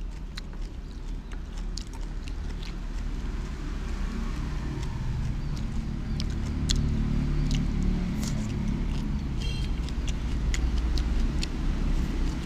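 Light scattered clicks of wooden chopsticks against a china plate over a steady low rumble that grows louder about halfway through.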